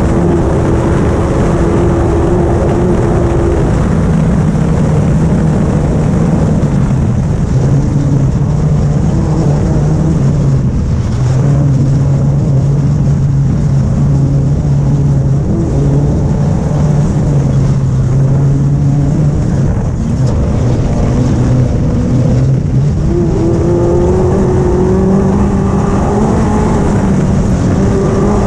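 Side-by-side race car's engine running hard at speed on a rough dirt track, mixed with heavy wind and road noise. The engine note drops about four seconds in, holds steady, then climbs again near the end.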